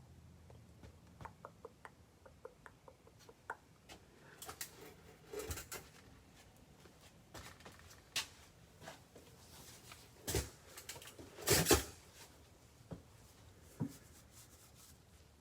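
Small clicks in quick succession, then scattered handling sounds of objects on a table: light rustles and short knocks, loudest in a brief clatter about two-thirds of the way through.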